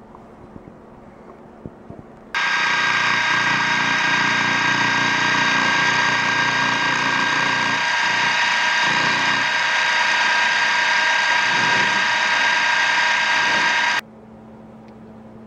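Milling machine running, its end mill cutting the front corner off an aluminum sight blank clamped in the vise: a loud, steady whine over a hiss. It starts abruptly about two seconds in and stops abruptly near the end.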